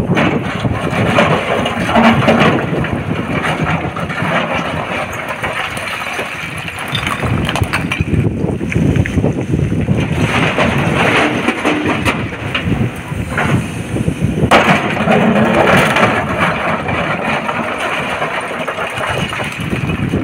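Sany crawler excavator working rock: its diesel engine and hydraulics run steadily under load while the steel bucket scrapes and digs into broken stone. Partway through, a bucket-load of rock is dropped with a rough clatter and rumble into a dump truck's steel bed.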